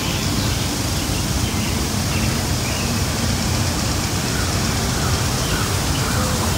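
Lawn sprinklers spraying: a steady, even hiss of water with a low rumble underneath.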